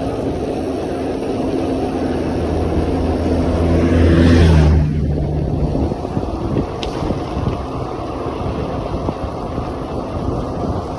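A car engine running while driving, with steady road and wind noise. The engine hum swells about four seconds in, then drops away a second or two later, leaving mostly the road and wind noise.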